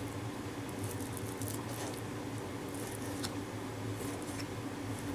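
Kitchen knife slicing venison into thin strips on a plastic cutting board: soft, irregular taps and squishes of the blade through the meat onto the board, over a steady low hum.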